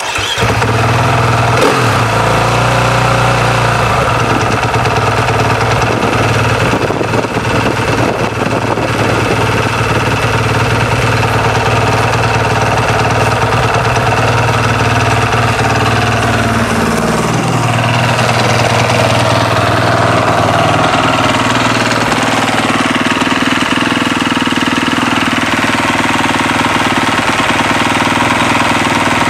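2013 KTM 450 SX-F motocross bike's single-cylinder four-stroke engine, with 182 hours on it, starting right at the beginning and then idling steadily. A little past halfway the idle speed drops and settles lower.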